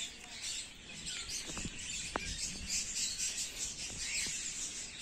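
Small birds chirping over a steady high hiss, with two short sharp clicks about a second and a half and two seconds in.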